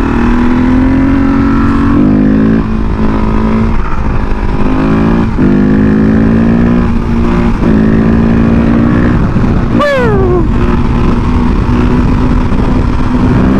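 Supermoto motorcycle engine running at a steady cruise, its pitch dipping and climbing back a few times as the throttle changes. About ten seconds in there is a brief sharp noise and a short falling tone over it.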